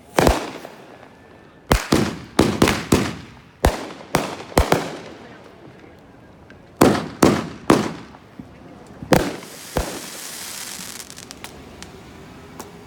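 Consumer fireworks going off: about fourteen sharp bangs in quick clusters, each trailing off briefly. Near the end comes a high sizzling hiss with a few small crackles.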